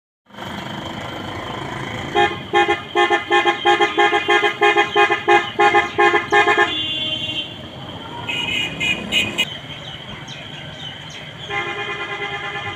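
Vehicle horn honked in a rapid string of short beeps, about three a second, for several seconds, then a few more beeps a moment later, over a steady low engine and street rumble. Near the end a fast pulsing horn-like tone starts.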